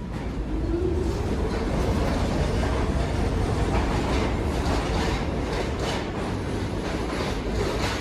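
R46 subway car running on the rails, a steady rumble with the wheels clicking over rail joints, louder from about a second in.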